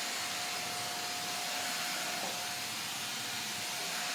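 Seznik Turbo 3-in-1 handheld vacuum cleaner's 600-watt motor running steadily during mopping: a constant hiss with a thin steady whine.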